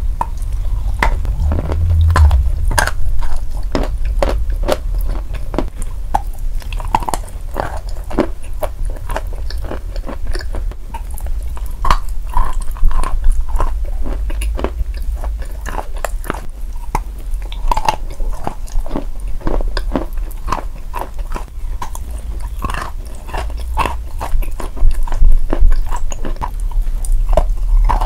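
Bar of sawn chalk coated in a brown paste being bitten and chewed close to the microphone: a dense, irregular run of sharp, crisp crunches over a low steady hum.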